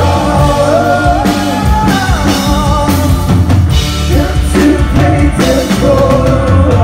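Live rock band playing: a male lead singer singing over electric guitar and a drum kit with cymbals.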